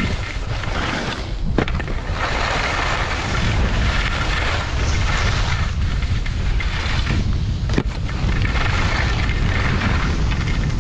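Wind buffeting the GoPro Hero8's microphone during a fast downhill ski run, a heavy low rumble, under the rushing scrape of skis on packed snow that swells and fades with each turn. A couple of sharp knocks, about a second and a half in and again near eight seconds in.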